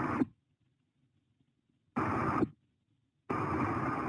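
Aviation VHF radio receiver putting out bursts of static hiss as transmissions are keyed, each opening and cutting off abruptly with no intelligible words: a burst ends just after the start, a short one comes about two seconds in, and a longer one starts a little after three seconds.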